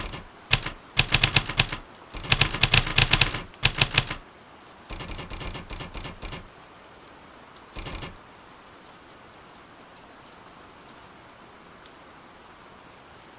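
Typewriter keystroke sound effects clacking in quick bursts as text is typed, stopping about four seconds in, with a softer run of clatter around five to six seconds and one more short burst near eight seconds. Under it, a steady hiss of rain ambience carries on to the end.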